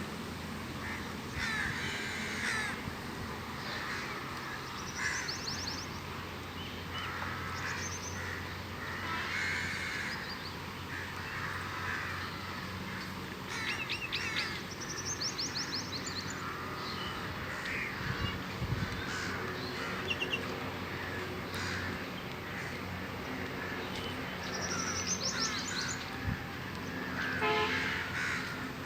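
Crows cawing again and again, with a smaller bird's short, high, fast trills now and then, over a faint steady low hum.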